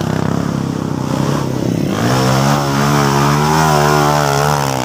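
Dirt bike engine revving hard under load on a steep dirt hill climb. About two seconds in, the engine note rises and then holds high with a slight waver.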